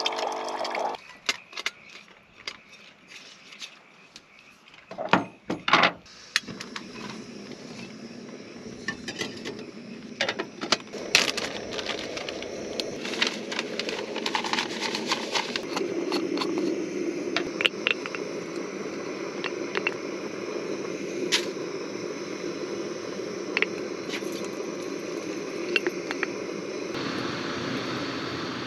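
A battery water-jug dispenser pump whines briefly as it fills a pot and stops about a second in. Then come clicks, knocks and paper rustles of camp cooking gear being handled, over a steady rushing noise.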